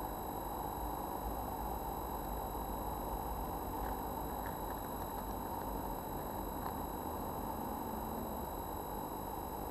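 Steady electrical hiss with several thin, high, steady whine tones from the camera's own circuitry, with a few faint clicks in the middle.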